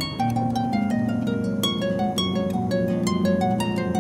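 Background music: a melody of plucked string notes, each struck sharply and fading, over lower notes.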